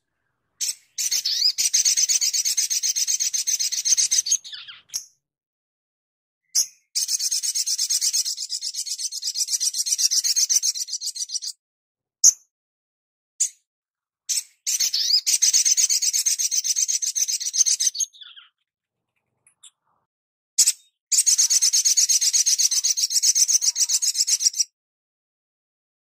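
Olive-backed sunbird (sogon) singing its rapid 'tembakan' song: four long, fast rattling trills of high notes, each three to four seconds long, separated by short single chips and brief pauses.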